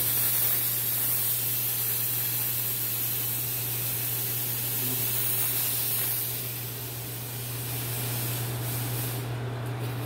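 Handheld disinfectant fogger spraying a mist of antibacterial disinfectant: a steady hiss over a low hum, easing slightly about two thirds of the way in.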